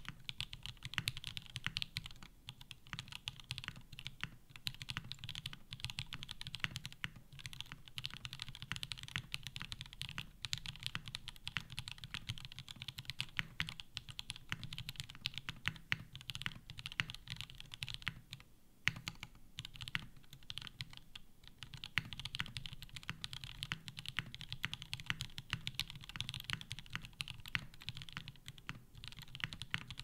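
Continuous typing on a custom mechanical keyboard: a Hiney TKL One, burger top mount with no foam, polycarbonate plate, lubed SP-Star Polaris White linear switches and GMK keycaps, resting on a deskmat. Keystrokes come in a dense stream, with a brief pause a little after halfway.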